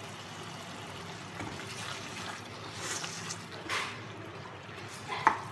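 Thick curry gravy simmering in a pan as a metal spoon stirs through it, with a few soft wet swishes and one short knock near the end.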